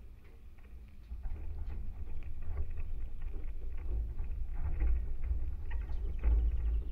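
Vibrations of a maypole and its tensioned guy wires, picked up by contact microphones: a deep rumbling drone with scattered small creaks and taps, growing louder about a second in.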